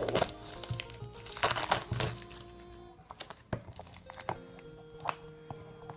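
Plastic shrink wrap crinkling and crackling as a Blu-ray case is handled and unwrapped, loudest about a second and a half in. Background music plays underneath.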